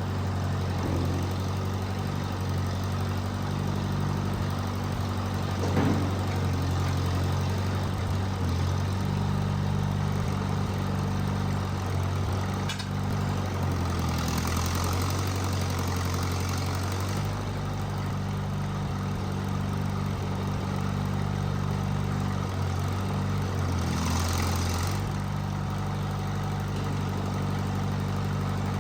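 1959 Massey Ferguson Work Bull 202 tractor engine idling steadily while the newly plumbed backhoe and loader hydraulics are tried out. The engine note shifts and a hiss rises briefly a few times as the hydraulics are worked.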